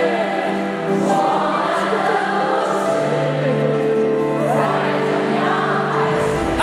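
Concert audience singing a pop ballad along in unison as a large crowd choir, over the live band's accompaniment.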